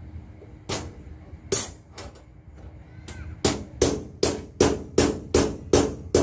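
Hammer blows on a metal strap bent around a bolt, beating it against a solid steel trailer to round out the bend. A few scattered strikes come first, then a steady run of blows about three a second from about halfway through, each with a short metallic ring.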